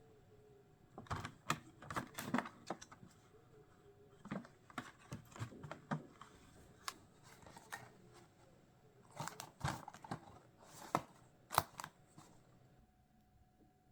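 Light clicks, taps and short rustles as a packaged Christmas decoration is handled and unwrapped, coming in three clusters and dying away near the end.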